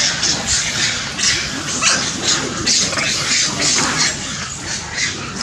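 Long-tailed macaques squealing in a rapid series of short, high-pitched cries, about two or three a second.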